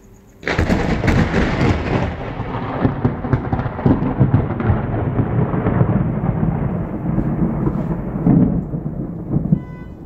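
Close thunderclap breaking with a sudden crack about half a second in, just after a lightning flash, then rolling on as a loud rumble that grows duller and dies down after about nine seconds.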